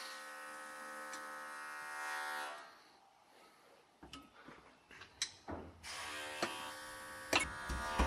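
A steady electric buzz with many even overtones runs for about two and a half seconds, stops, and comes back about five and a half seconds in. Light metallic clicks from pliers working a cotter pin into a wheel-hub castle nut sound between and over it.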